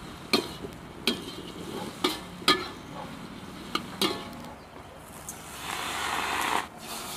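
Spatula knocking against a wok while stir-frying: five sharp clinks with a short ring over the first four seconds, then a hiss of about a second near the end that stops suddenly.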